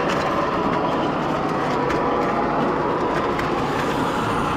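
O-scale model subway train running along three-rail track, heard from on board: a steady rolling hum of wheels and motor with a few faint clicks over the rail joints.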